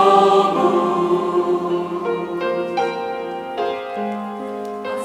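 Church choir singing a slow hymn in Russian, holding out the last word of a refrain line as long sustained chords that shift a few times.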